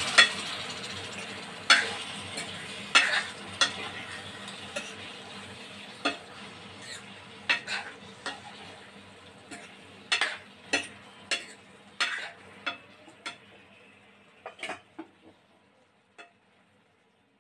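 Steel spoon stirring kofta balls in a thick masala gravy in a frying pan, scraping and knocking against the pan in irregular clicks over the sizzle of the cooking masala. The sizzle dies down, and the last seconds are nearly quiet.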